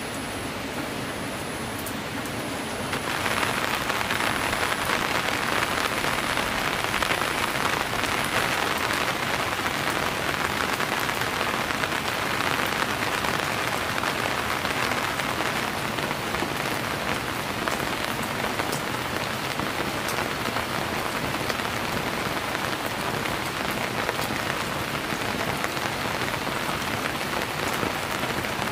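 Steady rain falling on surfaces, a dense patter that gets louder about three seconds in and then holds steady.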